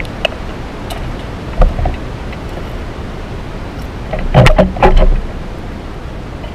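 Underwater noise picked up by an action camera in its waterproof housing: a steady rushing hiss, with a knock about one and a half seconds in and a cluster of louder knocks and bumps around four and a half to five seconds.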